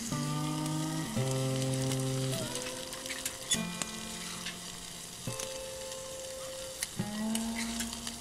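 Food sizzling and a small wood fire crackling beneath it, with sharp crackles scattered throughout. Instrumental background music of held chords plays alongside.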